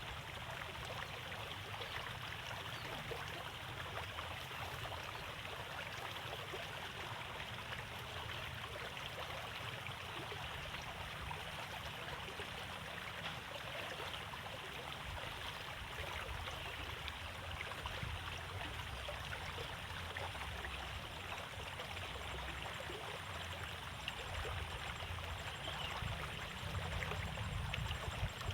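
Water flowing steadily in a narrow rice-field irrigation ditch, with a low rumble underneath.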